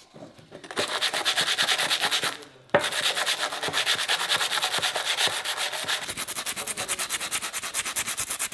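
Abrasive sanding sponge rubbed quickly back and forth over a rusty steel radiator fan shroud, taking off the rust. The rapid scraping strokes start about a second in, stop briefly after about two and a half seconds, then run on in an even rhythm.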